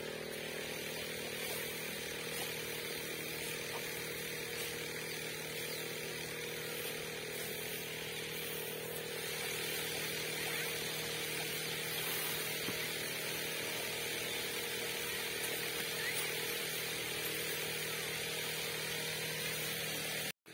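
A machine running steadily, a constant hum that neither rises nor falls.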